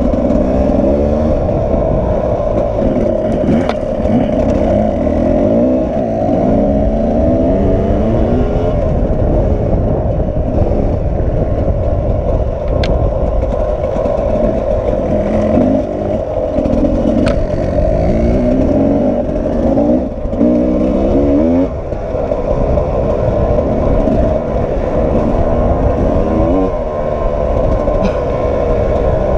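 Sherco 300 SE-R two-stroke enduro motorcycle engine heard from the bike itself as it is ridden, revving up and down repeatedly with the pitch climbing on each burst of throttle. A few sharp ticks stand out.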